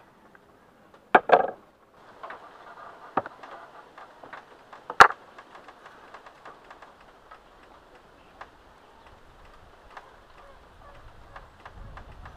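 Wooden bowls and a wooden spoon being handled on a table: a sharp double knock about a second in, another knock near three seconds, the loudest sharp click about five seconds in, then scattered light ticks.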